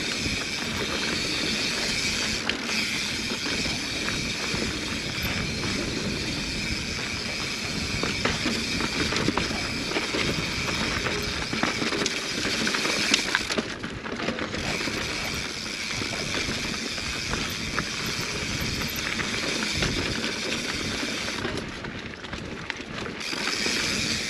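Mountain bike rolling down a dirt singletrack: tyre noise and the bike's rattles over the ground, with the rear hub's ratchet clicking as it coasts. The high buzzing part of the noise stops briefly twice, about halfway through and again near the end.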